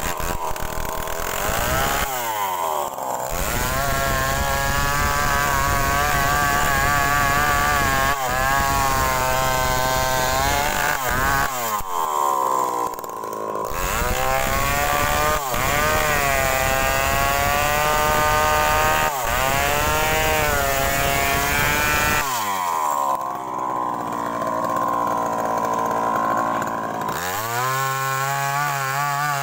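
Gasoline chainsaw bucking a felled rubber tree trunk into logs. The engine revs hard and its pitch sags and wavers under load in the wood, dropping back to idle three times between cuts before revving up again near the end.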